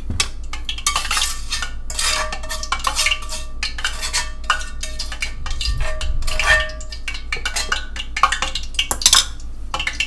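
A utensil scraping and knocking against a frying pan as cooked filling is cleared out of it into a plastic tub: many short scrapes and clinks, some with a brief metallic ring.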